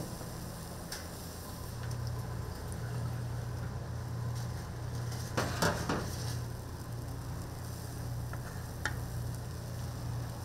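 Eggs for an omelette sizzling and being stirred in a frying pan, with sharp clinks of a utensil against the pan, the loudest a little past halfway. A steady low hum runs underneath.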